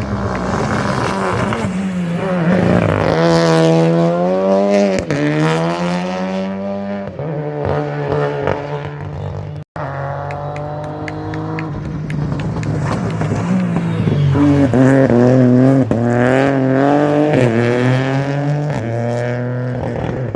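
Rally cars at full throttle on a closed stage. Engine pitch climbs and drops repeatedly as the drivers rev through the gears and lift. A sudden break about ten seconds in marks a second car's pass.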